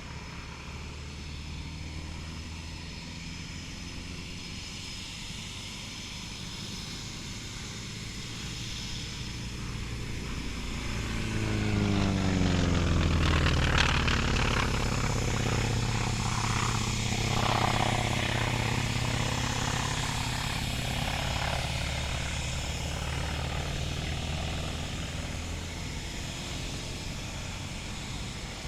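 Eurofighter Typhoon jet fighter flying past, its twin EJ200 turbofans swelling in level and peaking about twelve to fourteen seconds in as the pitch sweeps downward, then fading into a long rumble.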